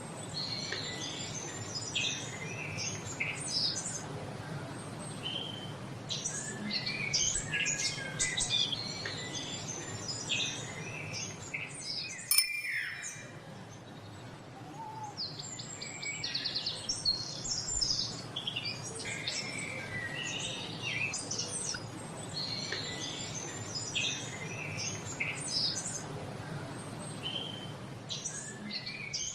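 Several songbirds chirping and singing together over a steady low background hiss. A sharp click about twelve seconds in is followed by a short lull in the birdsong.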